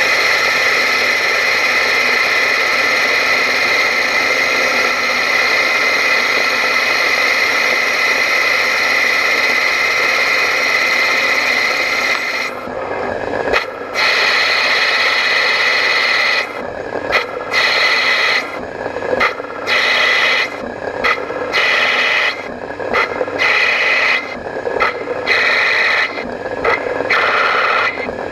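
CNC lathe turning a brass bar: the cutting tool scraping the spinning brass with a steady, high-pitched hiss over the spindle's whir. About halfway through, the cutting sound starts dropping out and coming back, roughly once a second.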